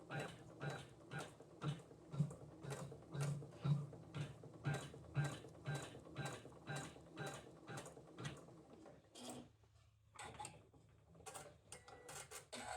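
Janome Atelier 9 sewing machine embroidering, a steady mechanical clicking of about two stitches a second over a low hum. It stops a little over nine seconds in, and a few scattered clicks follow.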